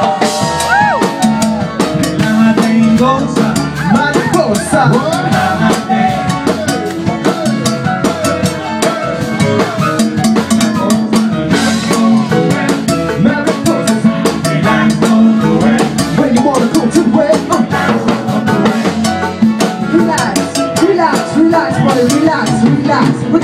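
A live band playing an instrumental groove: drum kit, upright bass and keyboard, with busy drumming throughout.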